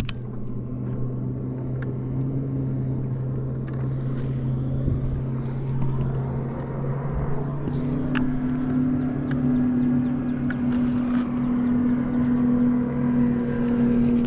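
Boat motor humming steadily, its higher tone growing stronger about eight seconds in.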